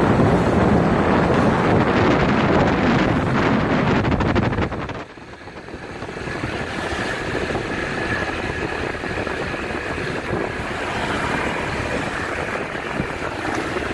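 Wind buffeting the microphone of a passenger riding on a motorcycle taxi, over the motorcycle's engine and road noise. The wind noise drops sharply about five seconds in, leaving a steadier, quieter ride noise.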